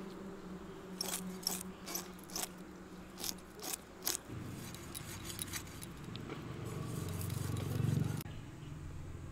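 Climbing perch (koi) fish being scaled by scraping it against a bonti blade: a run of short, sharp scraping rasps, about eight strokes in the first four seconds. In the second half a low hum swells, loudest near the end, then cuts off abruptly.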